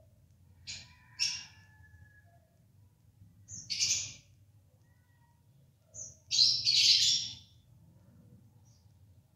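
Budgerigar calls from inside a clay nest pot: a couple of short chirps, another about four seconds in, then a louder run of squawky calls near the end.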